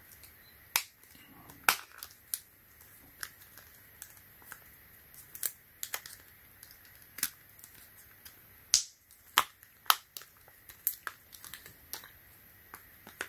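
A clear hard plastic phone case clicking and snapping as it is pressed onto the top half of a Samsung Galaxy Z Flip 6 dummy phone: a string of sharp, irregular clicks, with brief pauses between them.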